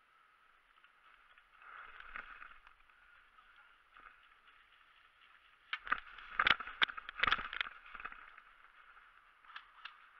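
Footsteps in dry fallen leaves, soft at first, then a run of loud crunching strides about six seconds in, with a few more light crunches near the end.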